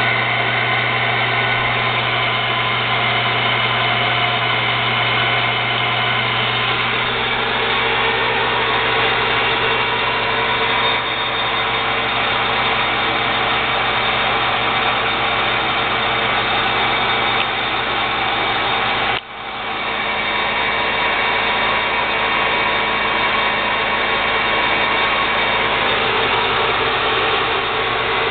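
TURNPRO 14 x 40 inch metal lathe running under power: a steady hum with several steady tones. The sound dips sharply for a moment about two-thirds of the way through, then picks back up.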